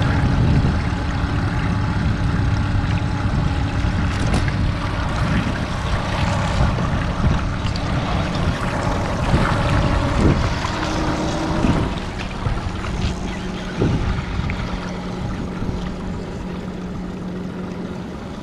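Boat motor running with the boat under way, with water and wind noise around it. About twelve seconds in, the sound gets quieter and settles into a steadier low tone.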